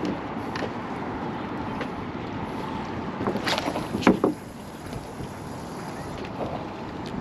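Steady wind and water noise outdoors, with a few short knocks and clicks a little past the middle.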